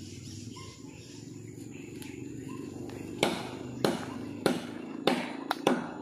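Six sharp cracks at a walking pace, roughly half a second apart, starting about halfway through: footsteps crunching dry leaf litter on a forest floor. A low steady drone runs beneath them.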